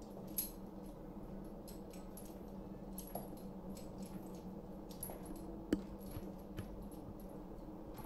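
Leg-iron chain clinking and jingling with each slow step, along with high heels clicking on a tiled floor, over a faint steady hum. The sharpest click comes about six seconds in.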